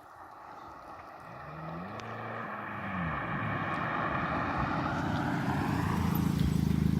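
Car exhaust through a Cherry Bomb glasspack muffler, growing steadily louder as the car approaches. Its engine note rises and falls in pitch about two seconds in, then holds a strong, steady low note near the end as the car comes close.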